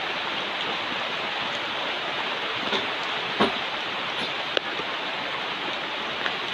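Steady rain falling, an even hiss with a few light ticks.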